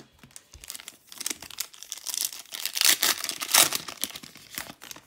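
Foil trading-card pack wrapper being torn open and crinkled by hand, a dense crackling rustle that grows loudest midway and then eases off.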